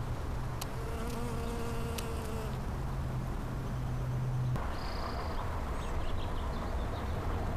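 Bees buzzing at a flowering shrub, a steady hum that cuts off abruptly a little past halfway through.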